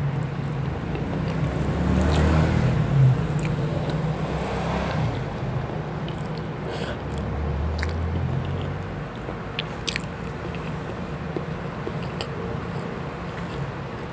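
Close-up chewing and mouth sounds of a person eating chicken adobo and rice by hand, with small clicks and smacks. A low rumble swells and fades twice.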